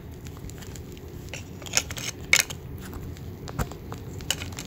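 A few sharp plastic clicks over rustling handling noise, the loudest about two seconds in, as the wiring harness plug of a Task Racing rechargeable light bar is pushed into its socket.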